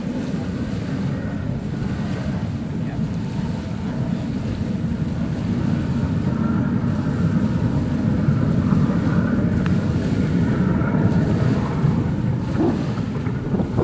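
Jet-engine-powered marathon jetboat running at speed, a steady rushing rumble with a faint high whine that grows a little louder as it comes closer, mixed with heavy wind noise on the microphone.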